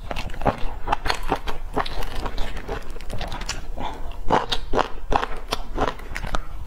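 Close-miked eating of pan-fried stuffed flatbread: irregular crisp bites and chewing crunches, several a second.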